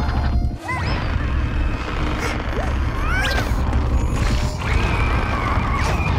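Cartoon soundtrack: a steady low rumble under music, with several whooshes and crashing sound effects and a few short squeaky glides.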